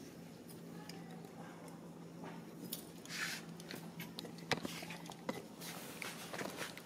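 Baby monkey handling the camera up close: rustling as its fur brushes the microphone, with scattered sharp clicks, the loudest about four and a half seconds in.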